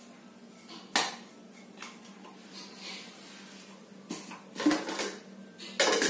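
Clicks and knocks of a small plastic blender jar being handled and its cap taken off: one sharp click about a second in, then a few more knocks and clatters near the end.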